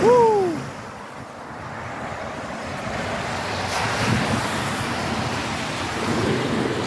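Cars driving fast through deep floodwater, the tyres splashing and hissing through the water: one car's spray fading in the first second, then another coming on and growing louder a few seconds in. A man whoops "Woo!" at the start.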